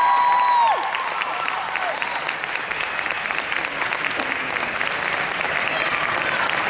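Audience applauding and cheering. A long, high, held cheer rises over the clapping in the first second, then steady applause continues.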